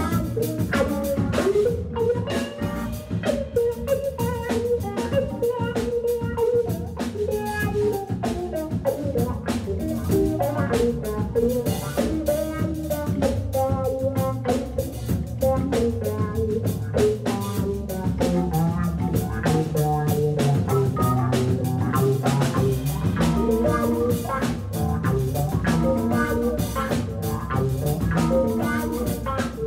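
Live funk organ-trio music: a drum kit keeps a steady beat under electric guitar and a Hammond B3 organ played through a Leslie speaker.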